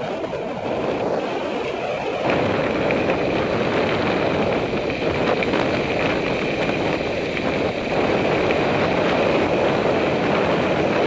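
Wind rushing over a helmet camera's microphone while riding a mountain bike, mixed with the rumble of knobby tyres rolling on a gravel trail. It steps up a little louder about two seconds in.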